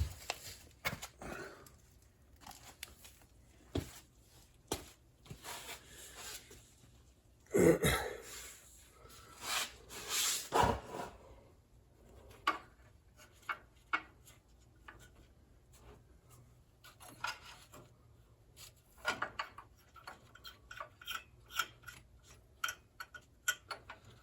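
Hand tools and metal exhaust parts being handled: scattered clicks, taps and light metal clinks, with louder scraping and rubbing twice in the middle and a quick run of small clicks near the end.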